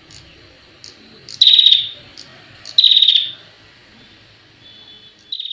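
Prinia (prenjak) giving loud, rapid rattling trill calls: two of about half a second each, about a second and a half apart, and a shorter third near the end, with soft short chirps in between.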